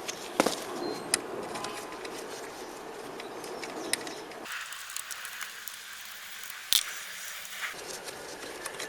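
Scattered light metallic clicks and taps of hand tools on small bolts as the brake-line bracket bolts are undone, over a steady background hiss.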